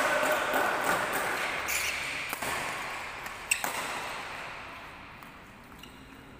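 Badminton rackets striking a shuttlecock during a rally: a few sharp cracks, the loudest about three and a half seconds in, over background noise that fades toward the end.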